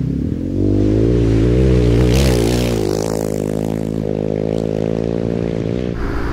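Carbureted V-twin engine of a 1992 Honda Africa Twin being revved up and down while ridden on dirt, with a brief scraping hiss about two seconds in. Near the end it changes abruptly to a steadier engine sound.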